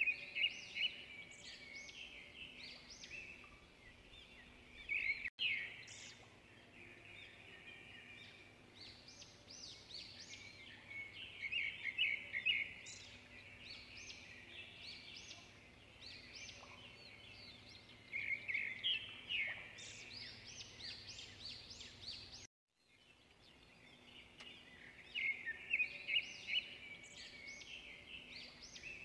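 Small birds chirping and twittering in repeated bursts over faint background noise, with the sound cutting out abruptly for a moment twice, about five seconds in and again about twenty-two seconds in.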